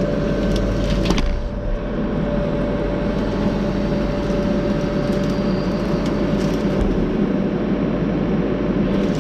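Skid steer engine running steadily under load with a thin steady whine while the hydraulic post puller grips and lifts a fence post, with a few sharp wooden cracks about a second in as the post gives.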